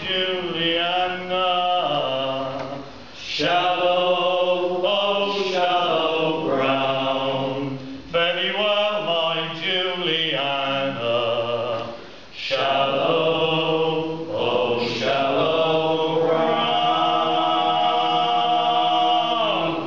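A group of men singing a sea shanty together, ending on a long held final note over the last few seconds.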